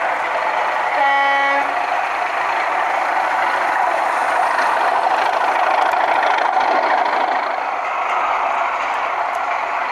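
A model diesel locomotive's DCC sound decoder giving one short horn blast about a second in, over steady running noise from the model train.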